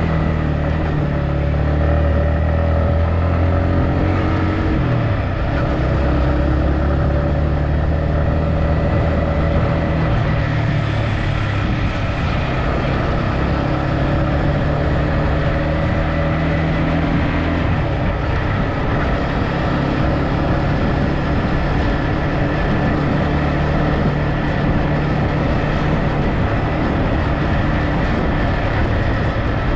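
Motor vehicle engine running steadily while driving, its pitch dipping briefly about five seconds in and shifting again around eighteen seconds.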